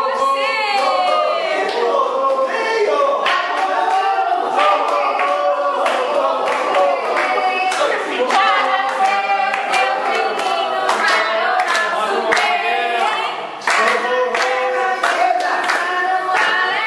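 A group of adults singing together while clapping their hands along to the song.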